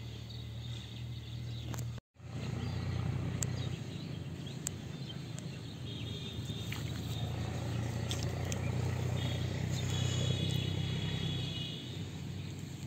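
Outdoor ambience: a steady low hum, cutting out for a moment about two seconds in, with short high chirping calls about six seconds in and again near ten seconds.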